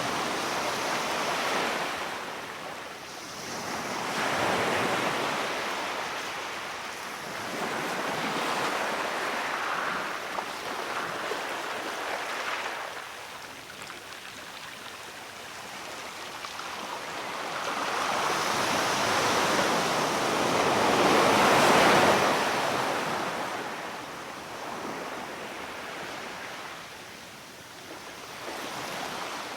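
Sea waves surging and washing onto the shore, swelling and fading every few seconds, the largest wave about three-quarters of the way through.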